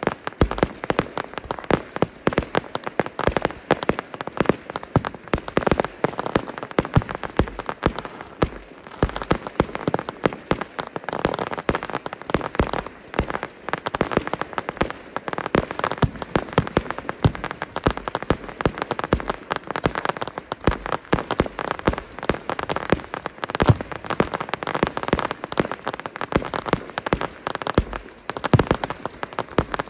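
Fireworks display: aerial shells bursting and crackling in a dense, continuous run of sharp bangs and crackles, many a second, without a break.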